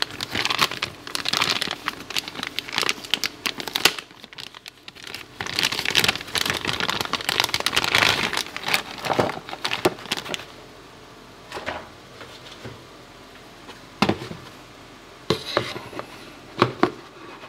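Anti-static plastic bag crinkling as a graphics card is unwrapped and pulled out of it, for about ten seconds. After that only a few scattered clicks and taps of handling.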